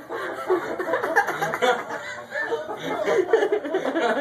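People chuckling and snickering, with some low talk mixed in.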